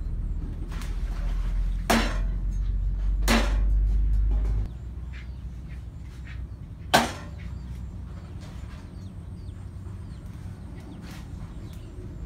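Three sharp clinks, about two, three and seven seconds in, the last the loudest, over a low rumble on the microphone that stops suddenly a little under halfway through.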